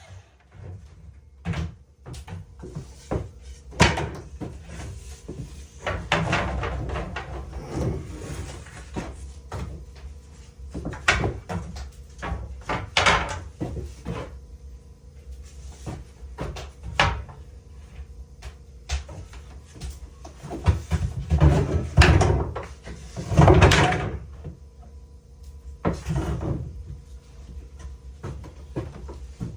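Irregular wooden knocks and thuds, with some scraping, from boards and hand tools being handled during wall-building carpentry.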